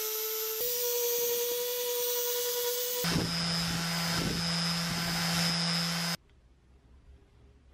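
Electric detail sander running steadily as its triangular pad sands an acacia wood axe handle. About three seconds in its tone shifts lower and rougher, and a little after six seconds it cuts off suddenly.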